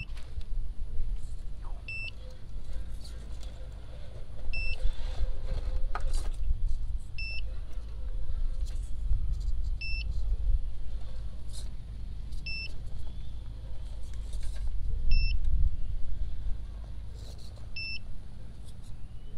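A short electronic beep repeating about every two and a half seconds over an uneven low rumble.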